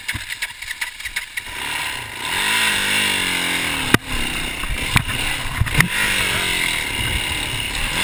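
Off-road motorcycle engine revving up and down under load on a steep, rocky climb, its pitch rising and falling in surges. Three sharp knocks cut through it about four, five and six seconds in.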